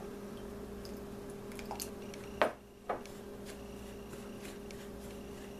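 Spatula stirring melted butter into graham cracker crumbs in a bowl, a soft squishing with a few light clicks and one sharp knock about two and a half seconds in, over a steady low hum.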